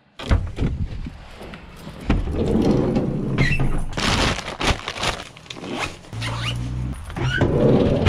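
Handling noises: a bunch of metal keys on a carabiner clinking, then a nylon rain jacket rustling as it is handled and pulled on, with two short squeaks.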